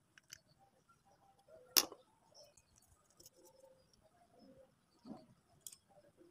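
Small clicks and taps from handling chainsaw carburetor parts by hand. A sharp click comes just before two seconds in, with fainter clicks and rustles around it.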